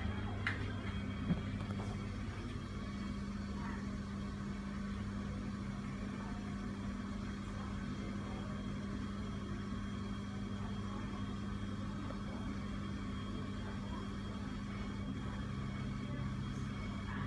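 Mitsubishi ceiling exhaust fan running steadily with a quiet, even motor hum.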